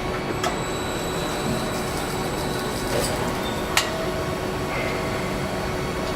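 Car assembly plant machinery running with a steady hum, broken by a few sharp clicks and clanks, the loudest about four seconds in.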